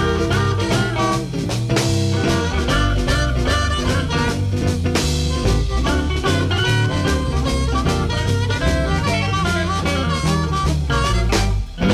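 Electric blues band playing: guitar lines over bass and drum kit, with a brief break in the sound just before the end.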